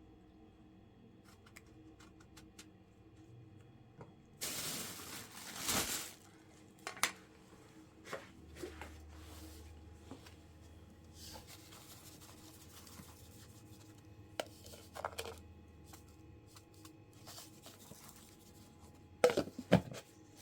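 Intermittent handling noises: a rustling, tearing sound about four seconds in that lasts a second and a half, scattered light clicks and knocks, and a couple of sharp knocks near the end, over a faint steady hum.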